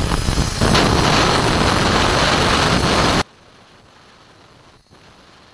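Handheld marble cutter with a diamond blade grinding through a marble slab along a straight-edge, making the final cut of a joint; a loud, dense grinding noise that cuts off abruptly about three seconds in, leaving only a faint low hum.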